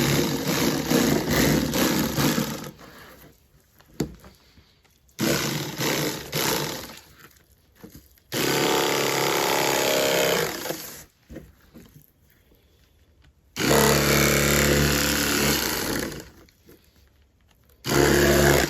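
Electric fillet knife running in about five separate bursts of two to three seconds each, buzzing as it cuts fish fillets.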